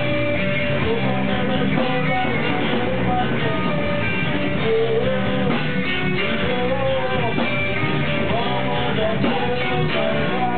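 Music with guitar playing throughout, with a melody line that slides up and down.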